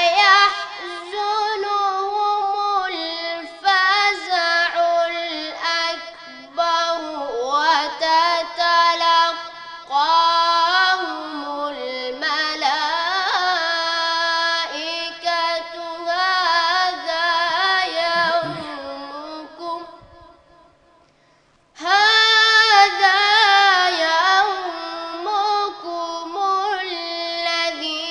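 A boy reciting the Quran in a melodic tajweed chant, holding long ornamented notes that wind up and down in pitch. He breaks off for a breath about 20 seconds in, then starts the next phrase.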